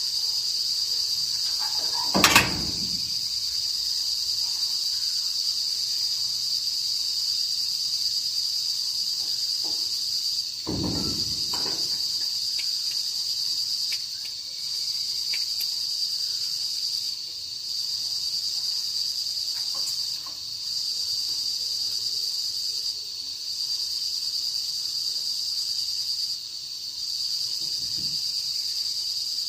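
Crickets chirring in a steady high-pitched chorus that breaks off briefly every few seconds in the second half. A sharp knock sounds about two seconds in, the loudest moment, and a duller thump follows around eleven seconds.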